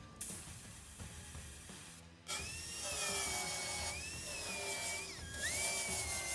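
A high-speed power tool starts running about two seconds in, with a high whine whose pitch wavers and dips sharply once near the end, as on bodywork metal. Background music plays throughout.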